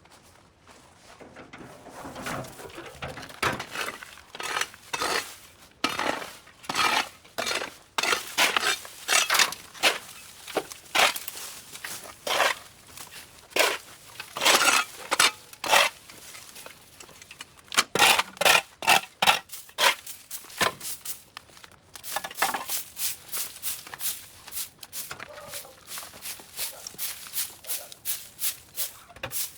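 Repeated scraping and crunching strokes of hand work clearing dry overgrowth, a few strokes a second, pausing briefly twice along the way.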